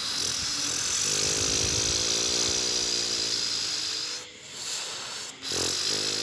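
Steady, rough whirring of a small motor, dipping briefly twice near the end.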